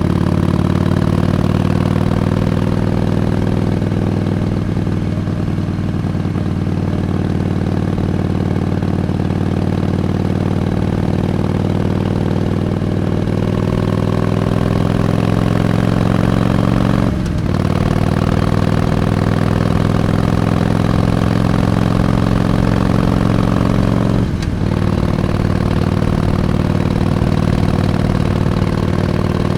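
Harley-Davidson Iron 883's 883 cc air-cooled V-twin running under way, its note slowly climbing. Twice, about seven seconds apart, the sound briefly drops out and picks up again, typical of gear changes.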